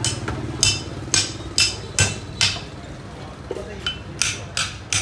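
A heavy cleaver chops through a large flathead catfish into a thick wooden chopping block. About ten sharp chops come roughly two a second, with a short pause a little after halfway.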